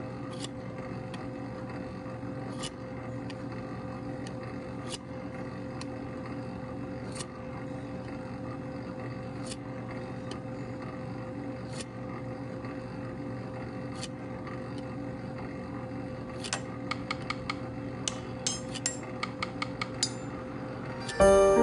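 Pasta extruder running with a steady motor hum, with a sharp click roughly every two seconds and a quick flurry of clicks near the end.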